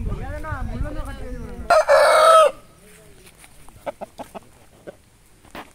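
Rooster crowing: one loud, short call that starts about two seconds in and cuts off abruptly after less than a second. It is followed by faint scattered clicks and rustles.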